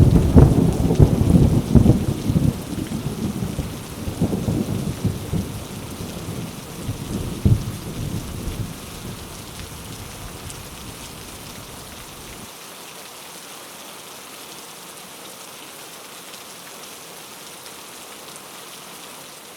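A sudden thunderclap and then rolling thunder that rumbles in waves and fades over several seconds, over steady rain. The deep rumble cuts off suddenly about twelve seconds in, leaving only the hiss of rain.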